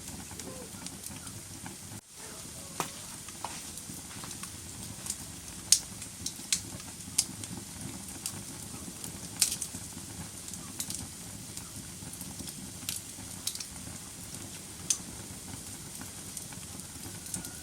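Wood fire in a fireplace crackling, with sharp pops at irregular intervals over a steady low hiss and a brief dip in level about two seconds in.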